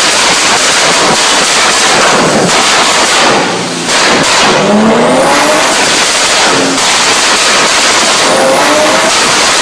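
BMW E30 3 Series engine running hard at high revs, loud and dense. There is a short drop in level just before the middle, then the pitch climbs as it accelerates, and it climbs again near the end.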